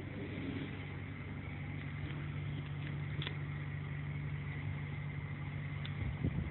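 An engine idling steadily with a low, even hum, and a few low thumps near the end.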